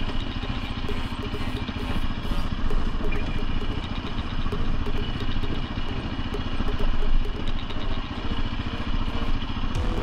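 Sport ATV engine running steadily as the quad rides over a rocky dirt trail, with frequent small clicks and rattles over the engine sound.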